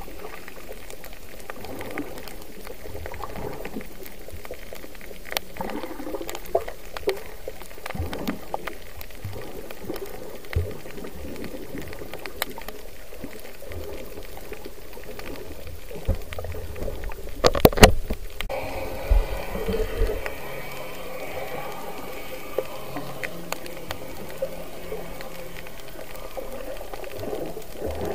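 Muffled underwater water noise as heard through an action camera's waterproof case, with scattered faint clicks and a cluster of louder knocks about seventeen to eighteen seconds in.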